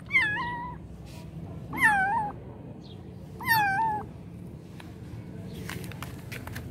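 A young kitten meowing three times, about a second and a half apart, each a short high call that bends in pitch.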